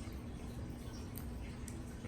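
Faint, sticky clicks of someone chewing a large mouthful of honeycomb, a few scattered smacks over a low steady hum.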